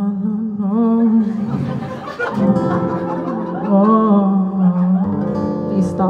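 Slow singing to an acoustic guitar, the voice holding long, wavering notes on the words "no no no no."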